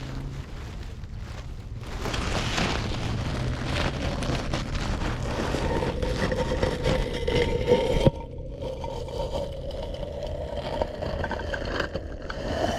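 Seashore ambience: water washing over rocks with wind on the microphone, under the steady hum of a passing engine that rises slightly in pitch near the end.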